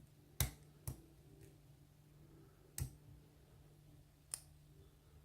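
Lock pick and tension wrench clicking in a Kryptonite padlock during single-pin picking: four sharp clicks, two close together about half a second in, one near three seconds and one past four seconds.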